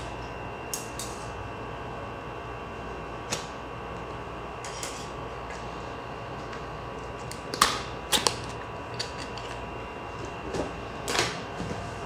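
Cardboard keyboard box being handled and opened by hand: scattered taps, rubs and scrapes of cardboard, with a few sharper clicks a little past halfway and one near the end, over a steady faint hum.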